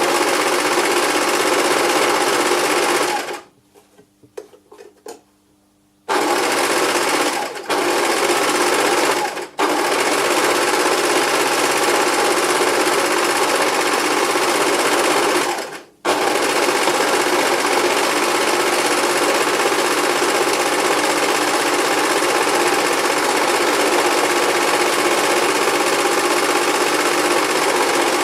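Electric sewing machine running fast and steadily. It stops about three seconds in, with a few light clicks during the pause, then starts again a few seconds later and keeps running, apart from brief stops twice more.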